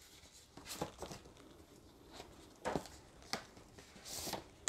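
Quiet handling of a hardcover book: a few soft clicks and taps as the cover is opened and the book is turned over in the hands, then a brief papery rustle near the end.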